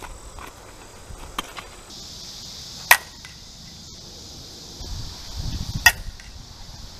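Two sharp cracks of a softball bat hitting pitched balls, about three seconds apart; the second is the louder.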